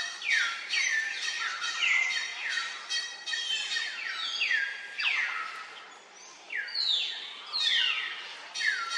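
Baby monkeys crying: a rapid string of shrill, high calls, each sliding down in pitch, about two a second, with a brief pause about six seconds in.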